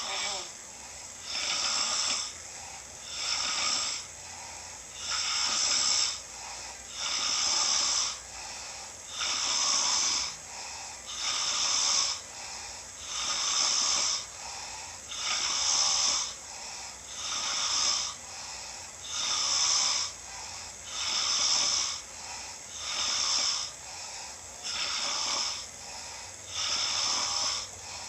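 A man snoring, a raspy, hissing snore repeating evenly about every two seconds, each about a second long.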